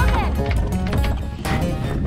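Background music: a song.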